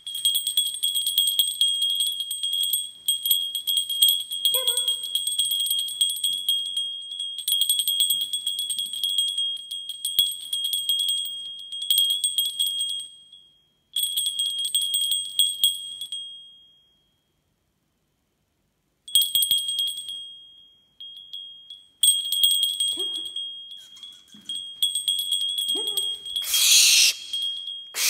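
A small bell ringing and jingling in bouts, a steady high ring with rapid tinkling, stopping briefly twice and then for a few seconds. Near the end a barn owl gives a loud, harsh hissing screech.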